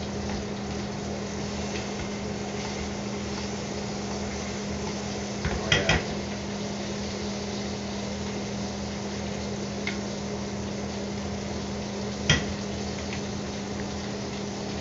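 Chicken breast frying in a skillet, a steady hiss over the steady hum of the range hood fan, with metal utensil knocks against the pan: a few clustered about six seconds in, a lighter one near ten seconds and a sharp one near twelve seconds.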